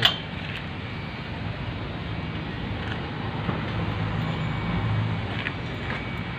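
Steady low vehicle rumble with a sharp click at the start and a few faint clicks later on.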